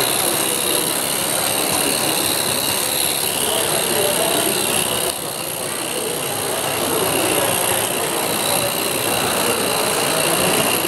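Small garden-scale live-steam locomotive running under steam, a steady hissing mechanical noise.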